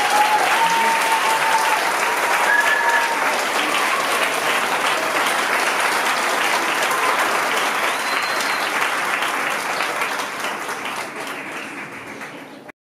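Audience applauding, with a few drawn-out cheers over the clapping near the start. The applause thins toward the end and cuts off suddenly.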